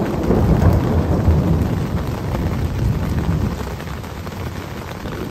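Rolling thunder rumbling during a night thunderstorm, loudest in the first second and a half and then slowly dying away, over steady rain falling on a tent.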